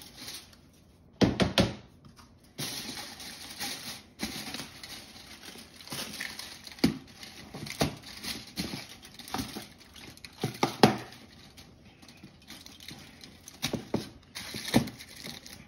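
Lid being fitted and pressed onto a large curing tub: a run of irregular knocks and clicks, loudest about a second and a half in, with rubbing and handling noise between.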